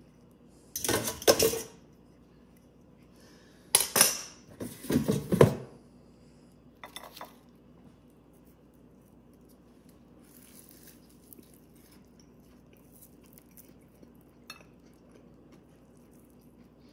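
Kitchenware clattering: short bursts of dishes and utensils knocking together, loudest about a second in and again around four to five seconds in, then a few faint clinks.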